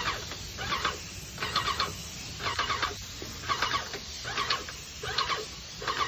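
Airless paint sprayer in use: a steady hiss under short bursts of squeaky, rapidly repeated pulses that come about once a second.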